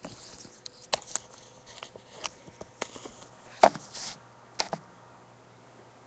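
Handling noise from a phone being moved and set in place: a run of irregular clicks, taps and knocks, the loudest about two-thirds of the way through, over a faint steady hum.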